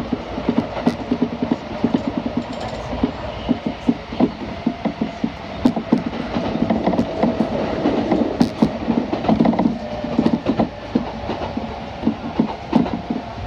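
Kintetsu electric commuter train heard from inside the carriage, running at speed: wheels clattering over rail joints and points over a steady running rumble. Near the end another train runs past close alongside.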